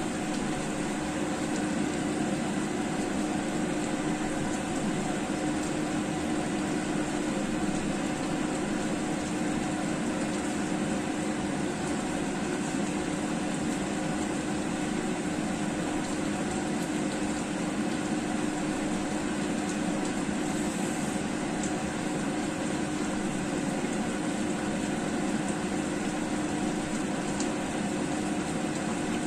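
A steady, unchanging hum with one constant low tone, heard over a pan of chicken-wing and potato curry simmering on the stove.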